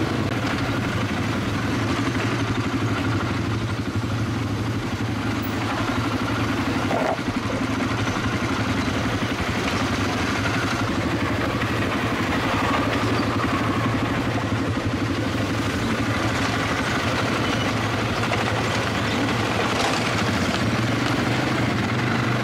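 ATV (quad bike) engine running steadily on the move, at a fairly even pitch with no large revs.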